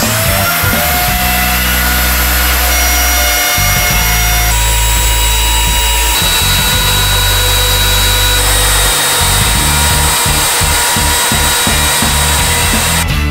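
Electric plunge router spinning up at the start, then running with a steady whine as it cuts across an epoxy-filled wooden tabletop. Background music with a low bass plays underneath.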